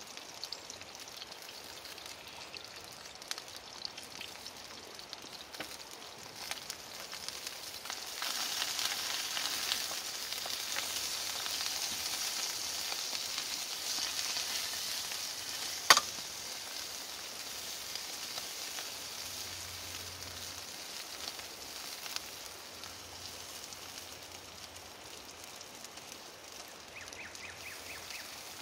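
Snow peas sizzling in hot oil in a frying pan on a camp gas stove while being stirred with a spoon; the sizzle grows louder about a third of the way in and eases off after the middle. A single sharp knock about halfway through.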